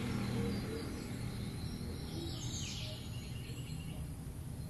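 Steady outdoor background noise, with one brief high-pitched chirp about halfway through.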